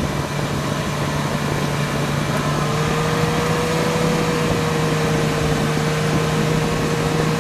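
Toyota Land Cruiser 200 engine running steadily under load as its wheels churn water, straining to climb out of a river onto the bank. A steady higher whine joins about two and a half seconds in.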